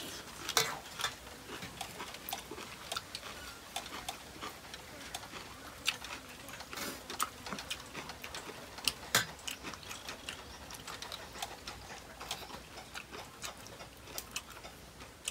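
Scattered, irregular clicks and taps of people eating a meal of crunchy fresh lotus stems and shrimp, with a couple of sharper clicks about half a second in and about nine seconds in.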